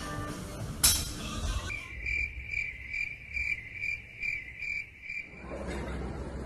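Crickets chirping in a steady high pulsing trill, about two or three chirps a second, starting a little under two seconds in and cutting off abruptly about five seconds in. A sharp click comes just before the chirping.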